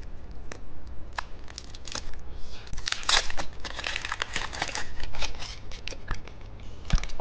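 Plastic candy wrapper crinkling and tearing as it is opened by hand, with scattered sharp clicks and a dense run of crackling in the middle.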